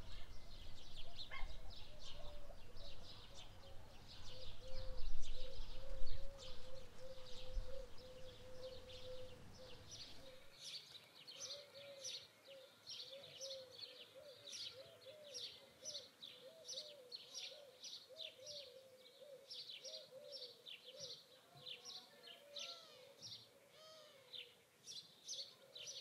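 Birds chirping in many short, rapid high notes, with a lower wavering call underneath. A low rumble sits under them and cuts off abruptly about ten seconds in.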